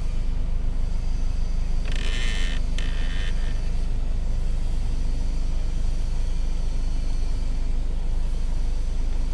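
The AC air-direction flap actuator motor in a Kia Sonet dashboard making two short, harsh, high-pitched noises about two seconds in, over a steady low hum in the car cabin. The actuator is dusty and dry, and needs lubricating.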